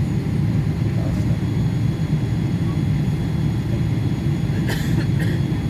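Steady low rumble inside a jet airliner's cabin as it taxis, with two short clicks near the end.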